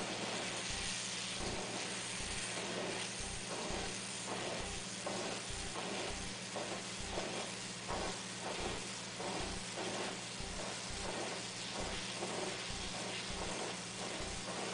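Oxyacetylene torch flame hissing steadily as it heats the back of a hardened knife blade to temper it, with a faint regular pulse about twice a second.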